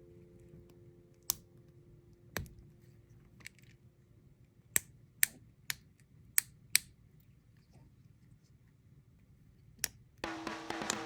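Pop-it fidget bubbles being pressed, giving sharp single pops, about nine of them, most in a quick run around the middle. Music starts near the end.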